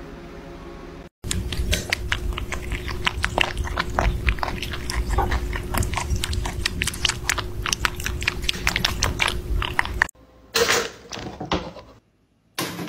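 Kittens lapping milk from a metal bowl: a fast, dense run of small wet clicks and smacks that starts suddenly about a second in and cuts off about ten seconds in.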